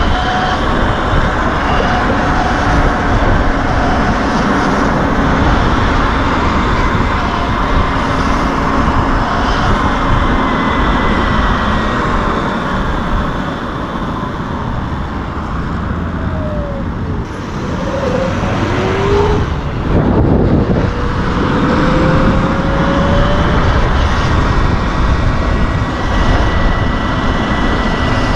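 Steady rush of wind and road noise from riding a Sur-Ron electric dirt bike, with a few short whines rising and falling in pitch about two-thirds of the way through.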